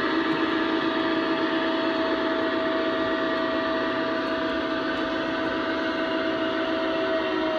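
O scale model freight train running on the track: the intermodal spine cars' wheels rolling steadily under a continuous drone from the Lionel Legacy SD90MAC's sound system. A steady higher tone in the drone stops just before the end.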